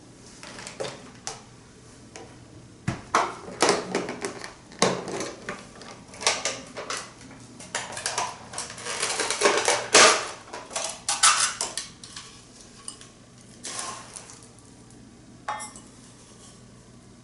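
Clinks and scrapes of a dry measuring cup and kitchen utensils as sugar is measured out for a saucepan: a string of separate knocks and short scrapes, with a longer gritty scraping rush near the middle.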